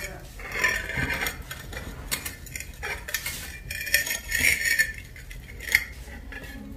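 Irregular metallic clinking and scraping in several clusters, with one sharp clink near the end.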